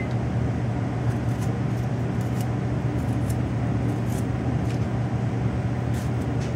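A steady, low mechanical hum that does not change, with a few faint, light clicks scattered through it.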